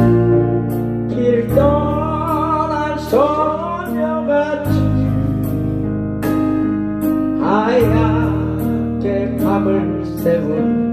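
A Korean ballad played over a backing track of keyboard, bass and steady drums, with a lead melody line that swells and wavers with vibrato.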